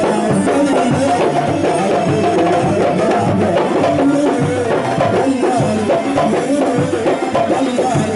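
Live Egyptian belly-dance music: a wavering melody over a busy, steady beat of frame drums and hand drums with jingles.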